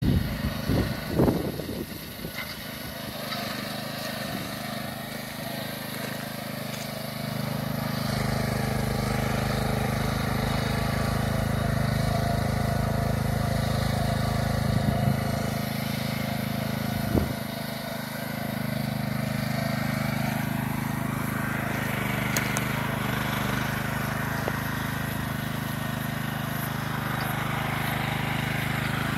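Small Kohler petrol engine of a Chargeur-Plus Sphinx mini digger running steadily under load, with a few knocks near the start and one sharp knock about 17 seconds in.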